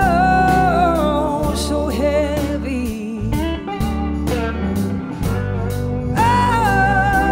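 Live blues-rock band playing: a slide guitar line with held notes, glides and vibrato over drums and bass, with backing vocalists singing.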